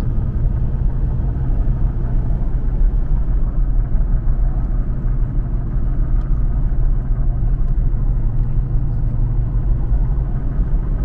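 Car driving on an asphalt road: a steady low rumble of engine and tyres.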